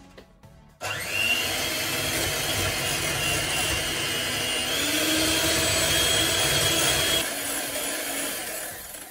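Handheld electric mixer whisking double cream in a glass bowl towards soft peaks. The motor switches on about a second in with a steady whine, which rises slightly about halfway through, then quietens and fades near the end.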